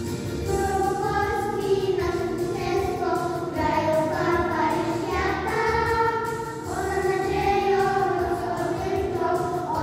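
A children's choir singing a song together, with a steady low musical accompaniment underneath.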